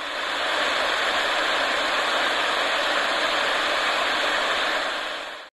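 Television static: a steady white-noise hiss that fades in, holds even, and drops away near the end.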